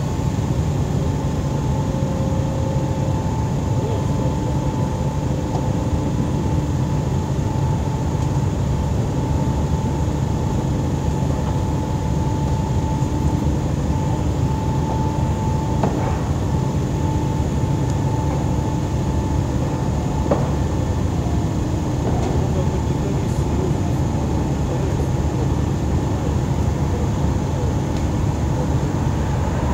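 Heavy machinery engines running steadily: a continuous low drone with a steady high-pitched whine over it, and two brief faint knocks partway through.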